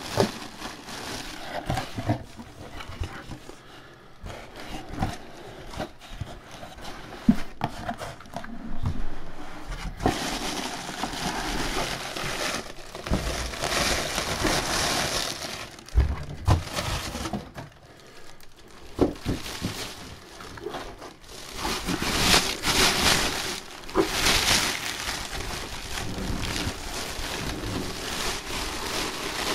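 Thin plastic bag crinkling and rustling around a full-size football helmet as it is worked out of its cardboard box, with cardboard scraping and a few sharp knocks.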